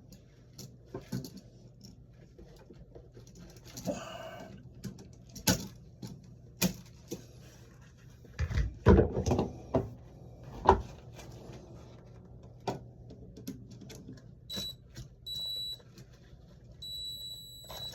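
Scattered clicks, taps and rustles from handling wires and a wall light switch, with a louder cluster of knocks about halfway through. Near the end, three short high-pitched electronic beeps, the last one longest.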